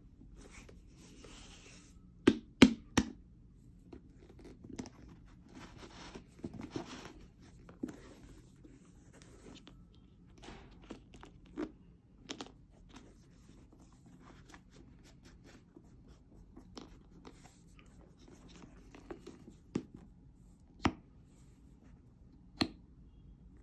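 Hands handling a new Air Jordan 4 sneaker: soft rustling and scraping, with sharp clicks and taps. Three clicks come close together about two seconds in, then single ones are scattered through, the last few near the end.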